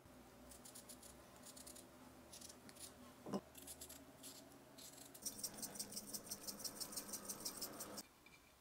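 Faint, crisp scratching and clicking of a knife cutting a cucumber lengthwise into spears, with a faster run of about seven even ticks a second from about five seconds in that stops suddenly near the end.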